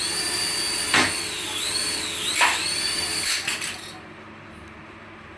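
High, steady electric whine from a remote-control toy, dipping in pitch briefly a few times, then cutting off with a few clicks about three and a half seconds in, leaving a faint hum.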